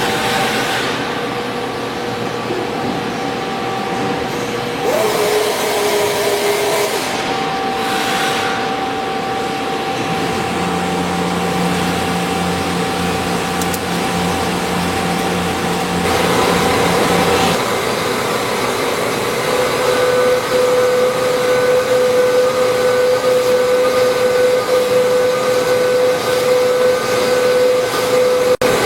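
CNC machine tools cutting metal: a steady whine from the spindle over a hissing cutting noise. The pitch and character shift several times.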